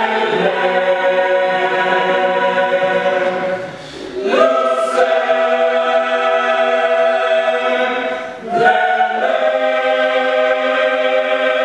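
Mixed choir of young voices singing long held chords in three phrases, with a short break for breath between them about four seconds and eight and a half seconds in.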